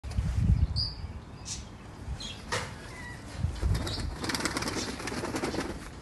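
Fancy pigeons' wings flapping, with a dense rapid flutter of wingbeats from about four seconds in and a few low thumps near the start.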